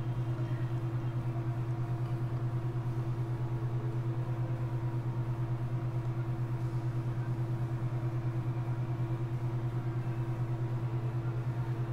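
A machine's steady low hum with a higher tone above it, pulsing quickly and evenly, about six times a second.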